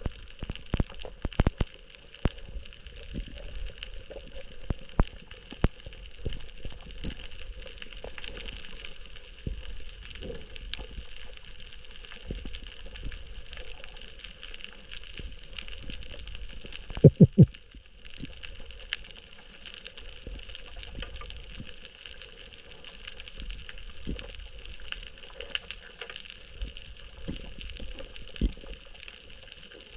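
Underwater sound on a spearfishing dive: a steady rushing hiss of water with scattered sharp clicks, and a quick run of three loud knocks about 17 seconds in.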